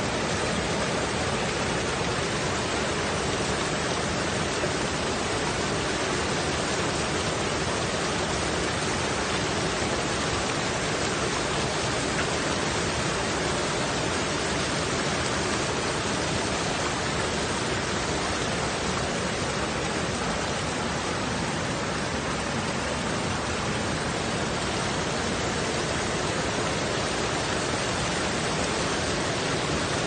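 Shallow waterfall: water rushing steadily over rock ledges and small cascades close to the microphone.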